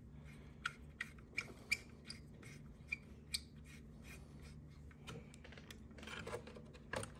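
A T-handle Allen key turning and snugging the headlight mounting bolts: a string of small, irregular metal clicks and light scrapes.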